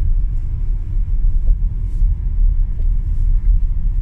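Steady low rumble of a car driving on a snow-covered road, heard from inside the cabin.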